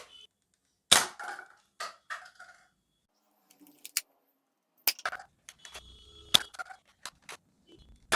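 NERF N-Strike Elite Disruptor blaster being primed and fired: a string of sharp plastic clacks and snaps, about ten at uneven spacing, as the priming slide is pulled, the drum turns and darts are shot.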